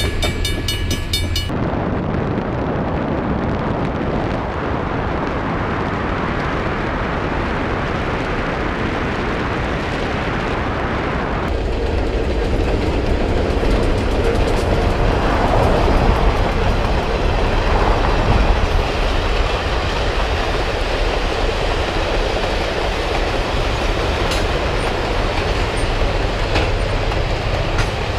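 Train running along the rails with a steady rumble and wheel clatter. A held multi-tone sound cuts off sharply about a second and a half in.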